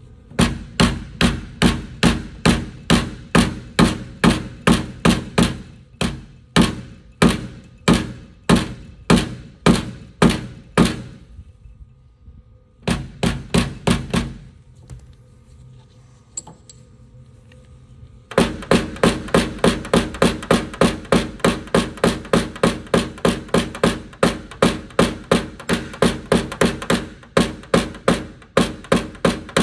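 Paintless dent repair tapping: a mallet striking a metal knockdown punch held against an aluminum Chevrolet Silverado liftgate, knocking down the metal around a glue-pulled dent. Steady taps about two a second, two pauses, then quicker taps about three a second over a steady background in the last third.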